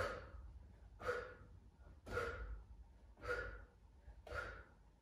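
A woman's short, forceful exhalations, five in all about a second apart, one with each lift of an abdominal curl-up: breathing out under the effort of the rep.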